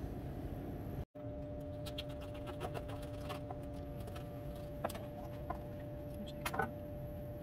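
Light clicks and taps of a metal spoon, tongs and knife against a steamed artichoke half and a plastic cutting board as the choke is scraped out, with a few louder taps near the end. A steady hum runs underneath.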